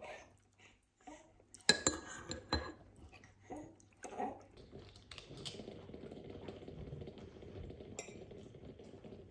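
Metal cutlery clinking and scraping against a ceramic bowl and plate while eating, with a few sharp clinks in the first half. Then a steady faint background noise.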